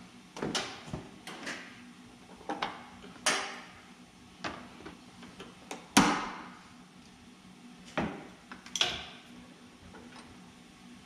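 Hand tools knocking and clicking against a GM pickup's steel door hinge while worn hinge pins and bushings are worked out. The knocks are separate and irregular, about one a second, with a single sharp knock about six seconds in the loudest.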